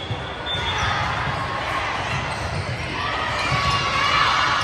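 Volleyballs thudding repeatedly on a gym floor during a youth volleyball match, with crowd voices echoing in the large hall and swelling a little near the end.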